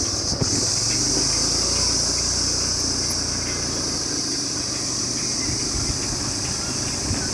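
A steady high-pitched insect chorus that does not change, over a constant low rumble.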